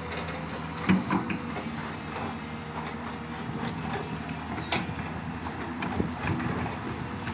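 Hydraulic excavator's diesel engine running steadily, with scattered metallic clanks and knocks from the machine at work, the loudest about a second in.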